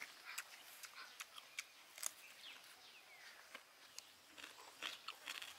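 Faint, irregular clicks and crackles, short and sharp, scattered over a quiet background.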